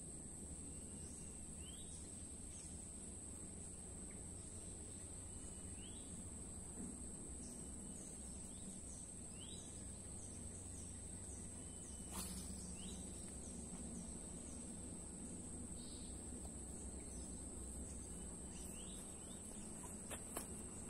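Insects buzzing steadily on one high tone, with scattered short rising chirps over a faint low background hum of the outdoors. A single brief knock about twelve seconds in.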